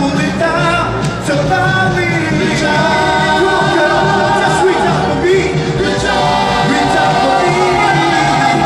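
Soul vocal group singing in harmony over live band accompaniment, several voices holding long notes together.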